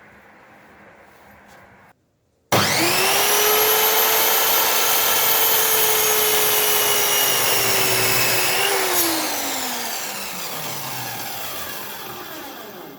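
Electric chop saw starting suddenly about two and a half seconds in, its motor running at a steady high whine for about six seconds. It is then switched off with a click, and the blade spins down with a falling pitch that fades away.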